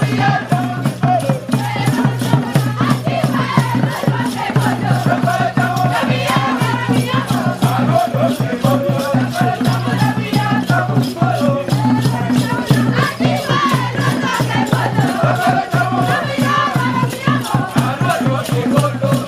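Music with a fast, steady shaker or rattle rhythm, voices singing over it and a steady low drone underneath.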